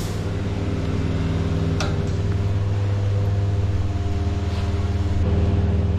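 Steady low mechanical hum of a running motor or machine, with one light tick about two seconds in.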